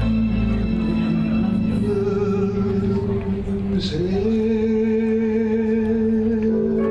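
Music with long held notes over a low bass; the bass drops out about a second in, and the held notes slide up to a new pitch about four seconds in.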